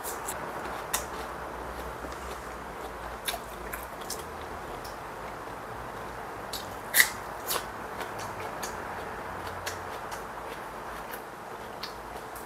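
Close-up chewing of crunchy food, a battered fried pepper and then a bite of raw red onion, heard as scattered small crunches and clicks. The sharpest crunch comes a little past halfway. Under it runs the steady whir of an electric fan.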